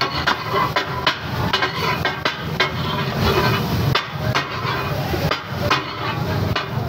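Metal spatula striking a large flat iron tawa griddle again and again, about two to three sharp clangs a second in an uneven rhythm, as fried fish is chopped and tossed katakat-style.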